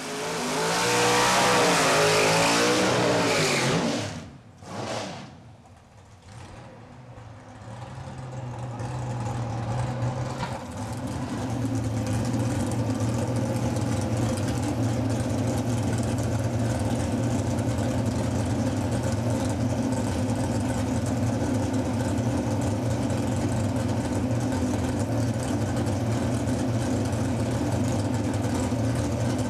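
Pro Modified doorslammer drag car's engine revving hard for about four seconds with a wavering pitch, then one short blip of the throttle, before settling into a steady, lumpy idle.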